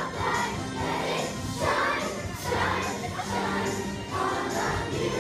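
A choir of young children singing together, with music behind them.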